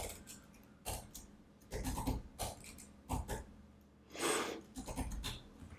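Computer keyboard typing in irregular short clicks and small runs, with a breath near the microphone about four seconds in.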